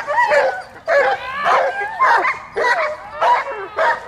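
A young dog barking in quick, high-pitched barks and yips, about two a second, as it is agitated by a helper during protection training.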